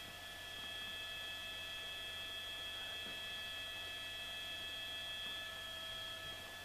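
A steady hum made of several constant high tones over a faint hiss, unchanging throughout.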